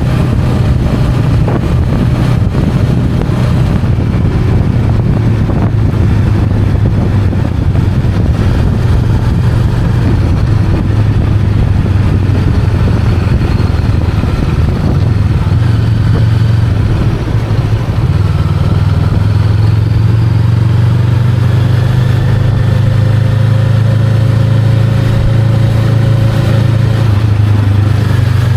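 Honda Rebel 500's parallel-twin engine running steadily while riding, with a broad rush of noise under the low engine note. The engine note shifts slightly and holds steadier from about 18 seconds in.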